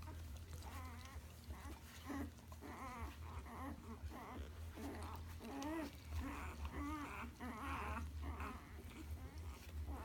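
Newborn Alaskan Malamute puppies, a day old, squeaking and whimpering over and over in short, wavering high cries, with a steady low hum underneath.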